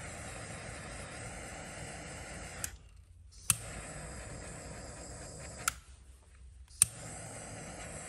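Butane jet-torch lighter hissing steadily while heating shrink tubing. Twice the flame goes out with a small click and the hiss stops for about a second. Each time it is relit with a sharp ignition click and the hiss comes back.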